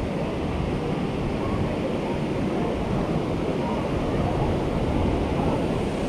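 Waterfall's water rushing steadily, a dense even wash of sound.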